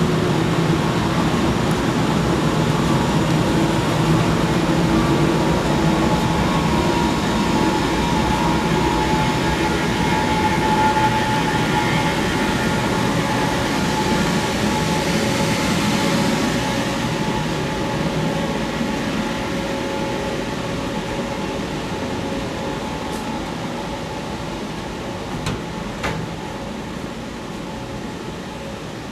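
Boiler-room machinery running: a loud, steady drone of rumble and hiss with several steady hum tones on top. It slowly grows quieter over the second half, with a couple of faint clicks near the end.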